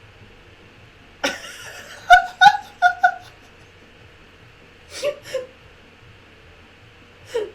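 A person laughing: a breathy burst, then four quick 'ha' sounds, and a couple of short chuckles later.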